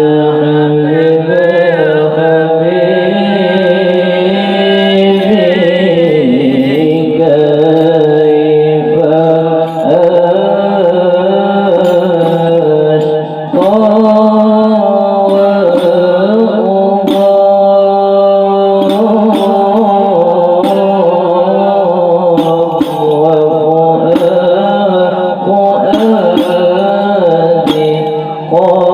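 A group of voices chanting an Arabic devotional blessing on the Prophet (sholawat) in unison, with long held notes that slide slowly between pitches.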